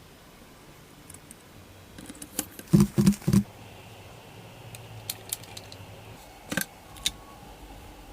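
Workshop handling noises: a quick run of knocks and clicks, loudest between about two and three and a half seconds in, then a few scattered clicks, over a low steady hum.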